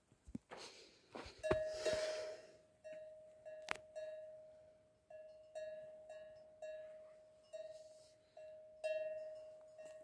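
Cowbell on a cow's neck clanking as the animal moves, about once a second. Each stroke rings one clear tone with overtones that fades before the next. A few sharp knocks come in the first four seconds.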